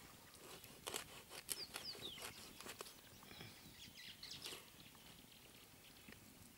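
Faint clicks, snaps and rustles of a porcupine carcass being cut with a knife and pulled apart by hand on a bed of leaves, with a few short high falling chirps about a second and a half in.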